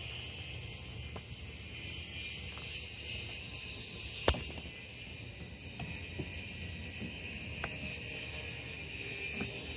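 Outdoor ambience of steady, high insect chirring over a low rumble, with one sharp click about four seconds in.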